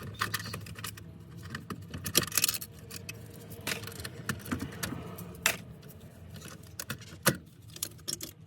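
Small metal parts and hand tools clinking and clicking in irregular knocks as the OEM shifter plate hardware on a Toyota MR2 is taken out, with a low steady hum underneath.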